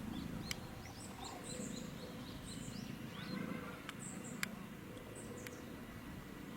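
Small birds calling in many short, high chirps over a steady low rumble, with four sharp clicks scattered through.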